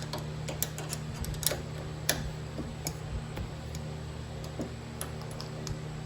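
Light, irregular clicks of a ratchet wrench working a 7/16 bolt on the mower, over a steady low hum.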